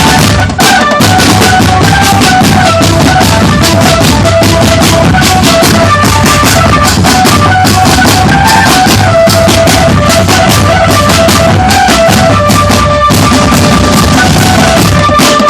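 Drum band playing loudly: snare, bass and other marching drums beat a fast, dense rhythm under a stepping melody carried by pitched instruments.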